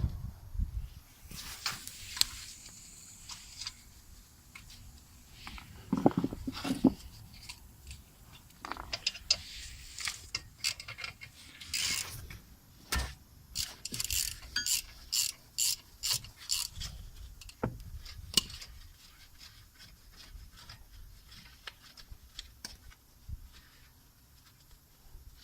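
Hand tools at work on a car's brake: scattered metallic clicks and clinks, with a run of short, quick ratchet-wrench bursts in the middle.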